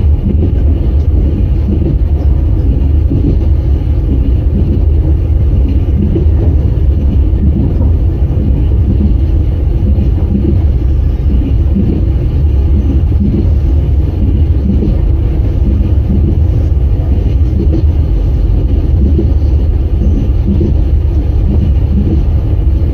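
Passenger train running at speed, heard from inside a carriage: a steady, loud, low rumble of the wheels on the rails.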